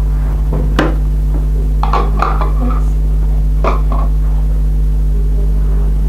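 A tray being handled and set down, giving a few short clattering knocks about one, two and three and a half seconds in, over a loud steady electrical hum.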